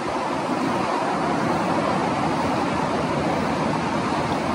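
Steady wind noise, an even rush with no distinct events.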